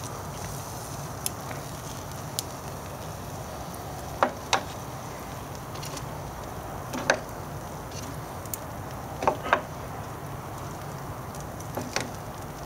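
Metal tongs clicking against a cast-iron grill grate as glazed beef ribs are lifted off. There are a few sharp clicks, some in quick pairs, every two or three seconds over a steady low hiss of sizzling sauce and charcoal.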